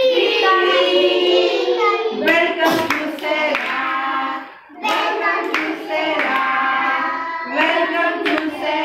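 Young children singing a song together in chorus, with a brief break about halfway through and a few hand claps mixed in.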